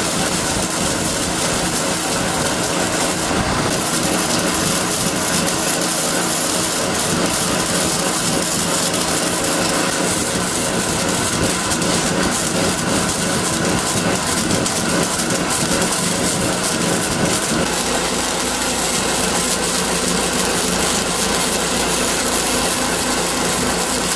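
Flux-core wire welder laying a continuous bead: the arc crackles and sizzles steadily while spatter flies.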